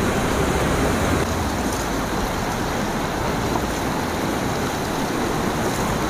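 Steady rushing of a mountain river's flowing water.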